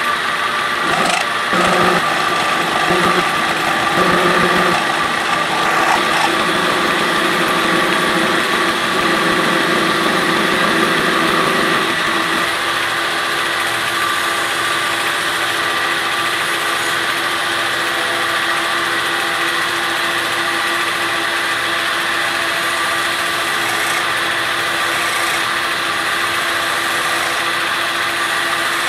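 1954 Monarch 10EE metal lathe running with its spindle turning, a steady high whine. For the first twelve seconds or so a rougher, deeper cutting sound from the tool turning the steel shaft lies under it, then stops abruptly, leaving the lathe running alone.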